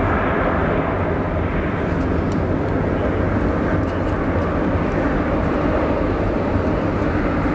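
Distant jet engines of a Boeing 737-800 (CFM56 turbofans) running with a steady rumble as the airliner rolls along the runway.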